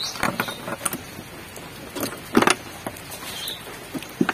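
An audio patch cable being handled and laid across a mixing desk: a string of irregular clicks and knocks as its metal jack plugs and the cable strike the mixer, loudest about two and a half seconds in.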